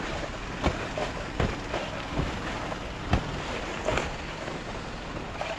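Footsteps crunching in snow at a steady walking pace, about one step every three-quarters of a second.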